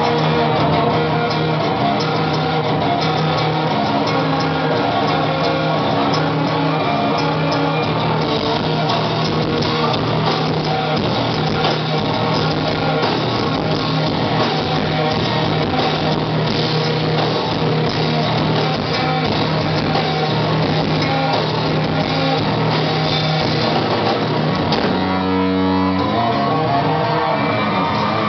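Electric bass guitar solo played live and loud, with a drum kit behind it. A low note is held through most of it, giving way to a run of changing notes near the end.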